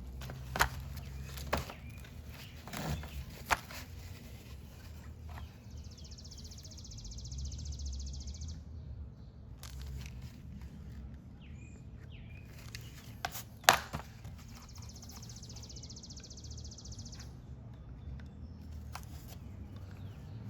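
Workshop handling sounds while a two-part filler is measured out and mixed: scattered clicks and knocks, the loudest about 14 s in, over a low steady hum, with two stretches of high hiss a couple of seconds each, about 6 s and 15 s in.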